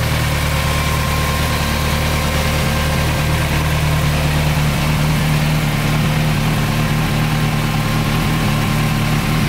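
Kawasaki Z1000SX's 1043 cc inline-four engine idling steadily through a carbon-fibre aftermarket silencer, with no revving.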